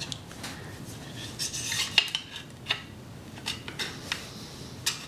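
Light metallic clicks and scraping as a Sheridan Streak air rifle's greased pump rod is worked in the pump tube. The sharpest click comes about two seconds in.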